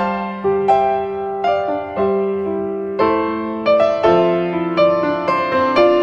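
Background piano music: a melody of struck notes over held chords, new notes coming about twice a second.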